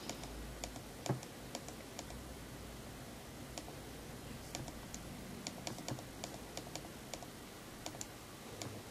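Canon EOS 650D's small control buttons pressed again and again, scrolling a menu: a run of faint, short clicks, uneven, one to three a second.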